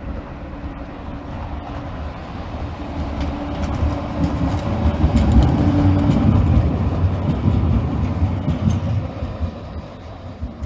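Bombardier Flexity low-floor electric tram passing close by on street track. Its low rumble and steady hum grow louder to a peak about halfway through and then fade as it moves off, with light clicks from the wheels on the rails.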